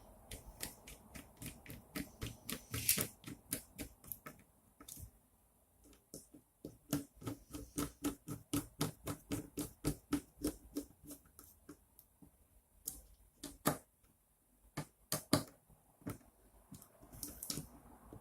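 Small screws being driven into captive nuts in the acrylic frame of an Anet A8 3D printer kit with a hand screwdriver: two runs of quick, even clicks, about four a second, with a short pause between them, then a few louder single knocks near the end.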